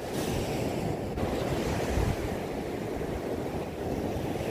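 Surf breaking on a sandy beach, a steady wash of small waves, with wind buffeting the microphone in a brief gust about halfway through.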